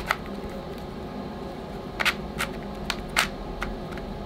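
Plastic Rubik's cube being twisted, its layers snapping into place with sharp, irregular clicks, about half a dozen, bunched mostly in the second half.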